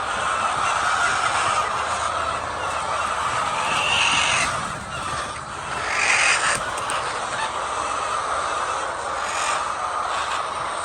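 A flock of laying hens clucking and calling steadily, with two louder, higher squawks about four and six seconds in.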